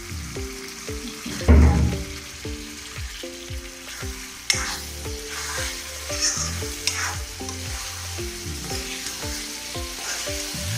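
Raw chicken pieces sizzling in hot oil and masala in a karahi while a spatula stirs and scrapes the pan. A heavy knock comes about a second and a half in.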